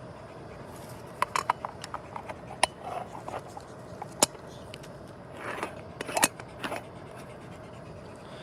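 Objects being handled: a run of sharp clicks and taps with brief scraping, mostly in the middle, over a steady hiss.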